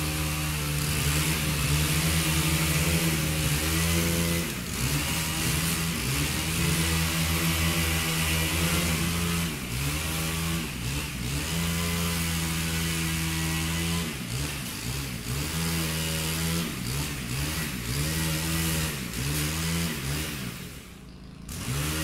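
Chainsaw running at high speed, its pitch sagging and recovering several times. Near the end the sound briefly drops away, then comes back at full speed.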